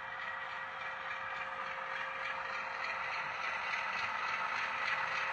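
HO scale model diesel locomotive running along the track with freight cars: a steady hum with a faint, even clatter of wheels on rail, growing slowly louder.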